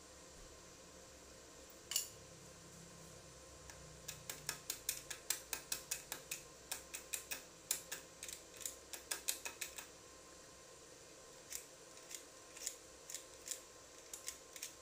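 A series of sharp, crisp clicks: one about two seconds in, then a quick run of about three to four a second for several seconds, thinning out to scattered single clicks near the end.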